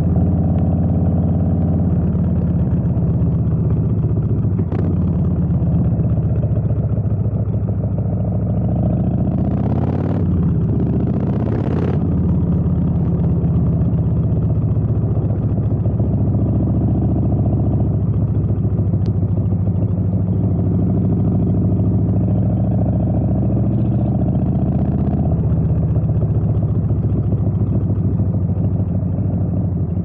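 Harley-Davidson Street Bob's V-twin engine running through an aftermarket exhaust, heard from the rider's seat at road speed, the note rising and falling as the throttle opens and closes. Two short rushes of noise come about ten and twelve seconds in.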